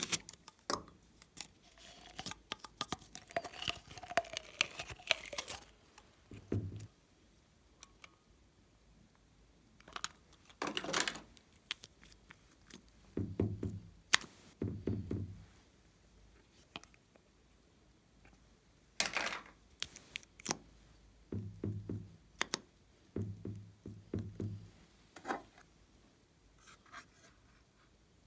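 Hands squishing and pressing glossy slime in irregular bouts, with sticky crackles and several low squelching pops.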